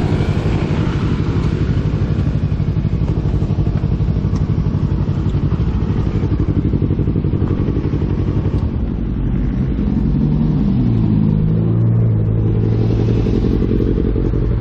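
Sport motorcycle engine running at low speed with a fast, even pulse. About nine seconds in the pulse fades and a smoother engine hum from traffic takes over, rising slightly in pitch.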